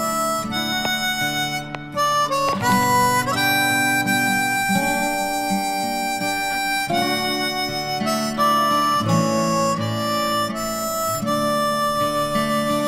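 Background music: a harmonica playing long held notes that step from pitch to pitch, with guitar underneath.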